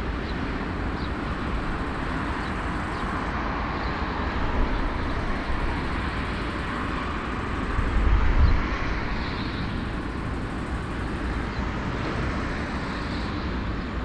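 Four-engine Airbus A340's jet engines running at low power, a steady rumble and hiss that swells briefly about eight seconds in.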